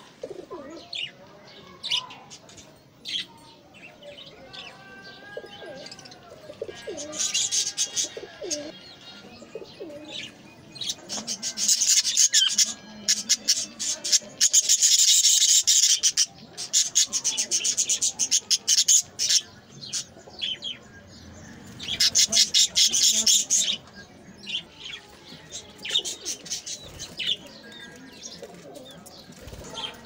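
A flock of budgerigars chattering in a dense, high, rapid twitter, loudest in several long stretches through the middle. Lower pigeon coos sound in the first part.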